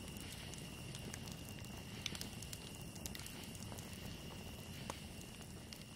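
Crackling campfire ambience: a faint steady low rumble with scattered small pops, and a thin steady high tone held underneath.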